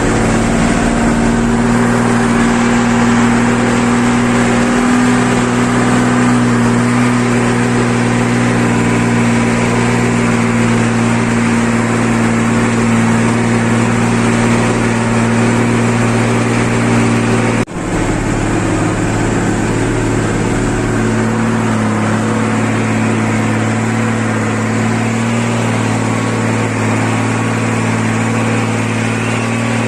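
Mercedes-Benz 1620 truck's six-cylinder diesel engine running steadily under load, its exhaust rumbling at an almost constant pitch. There is a momentary break in the sound about eighteen seconds in, and a slight shift in engine note a few seconds later.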